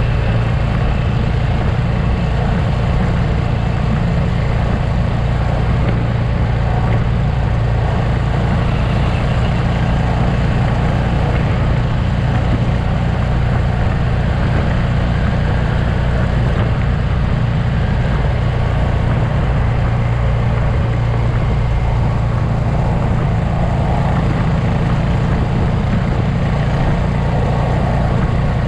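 Motorcycle engine running steadily at cruising speed on the open road, mixed with wind and tyre noise, as heard from a camera on a moving motorcycle.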